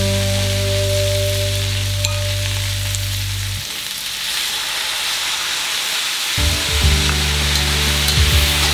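Sweet leaf greens stir-frying in plenty of hot oil in a steel wok: steady sizzling, with the metal spatula scraping and tapping against the wok now and then, more often in the second half.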